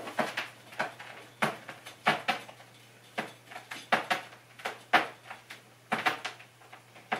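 Small clear plastic packaging being picked up and handled by hand: a string of short, irregular crinkles and clicks.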